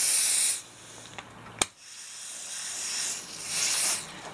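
Aerosol lubricant spray hissing onto a stuck universal-joint bearing cap: a short loud burst at the start, a sharp click about a second and a half in, then a longer spray that builds over about two seconds.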